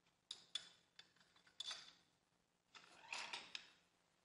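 Faint metallic clicks and scraping from the vibration damper and its mounted tool holder being unscrewed and pulled off the crankshaft of a 2.0 TSI engine. Two sharp clicks come in the first second, then a short scrape, and a longer rattling scrape about three seconds in.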